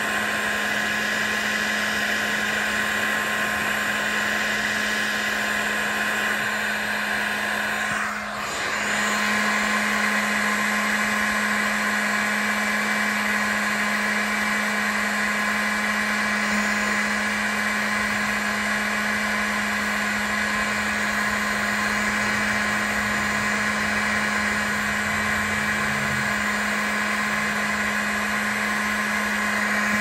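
Heat gun running steadily, its fan blowing hot air with a constant hum, heating a heat-shrink wire connector until it melts; the sound dips briefly about eight seconds in.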